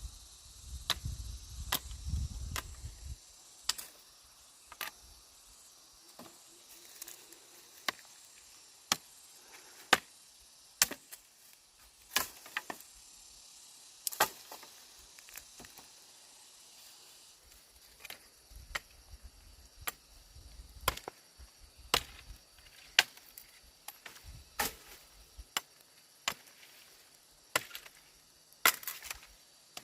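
A series of sharp, irregular knocks, roughly one a second, like strokes on wood.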